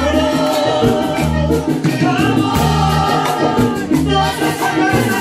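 Live band playing Latin music over outdoor PA speakers: sung vocals over a strong bass line and percussion with a steady dance beat.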